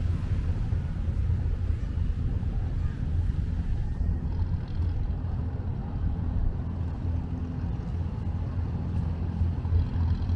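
Steady low rumble, without clear breaks or sudden events.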